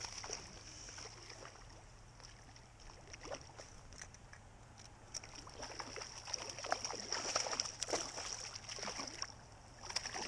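A hooked trout thrashing at the surface of a stream as it is played in toward the landing net: irregular splashes and slaps of water, busiest over the last few seconds, over the steady hiss of flowing water.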